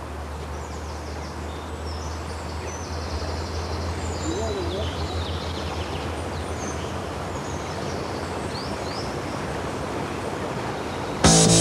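Outdoor ambience: birds chirping now and then over a steady hiss and a low hum. Music starts suddenly near the end and is the loudest sound.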